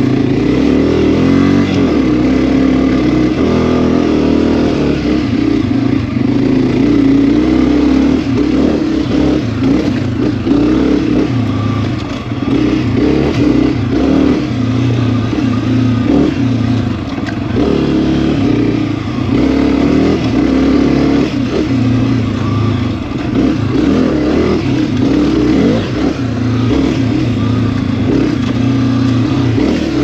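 Honda CRF250F dirt bike's single-cylinder four-stroke engine running continuously, its pitch rising and falling as the throttle is opened and closed.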